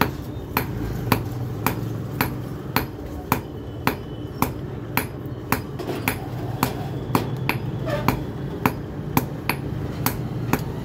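Hand hammer striking a red-hot thin steel rod on a small steel anvil block: a steady rhythm of sharp metallic blows, about two a second, each with a brief ring, as the rod is hand-forged.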